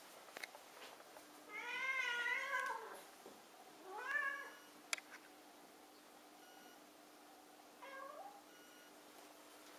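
Burmilla cat meowing three times: a long wavering meow about two seconds in, a shorter rising one about a second later, and a brief one near the end.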